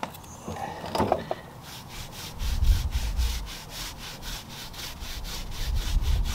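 Soft tyre dressing brush scrubbed back and forth over a tyre's rubber sidewall, a rhythmic swishing at about four strokes a second that starts a second and a half in. Low rumbling comes and goes underneath.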